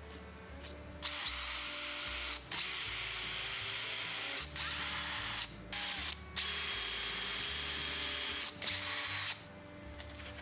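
Power drill boring into the edge of a plywood block, run in about six bursts with brief stops between them. Each start has a rising whine that then holds steady and high.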